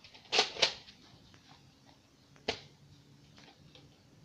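Nerf foam-dart blaster clacking: two sharp clacks close together about half a second in, and a third about two and a half seconds in.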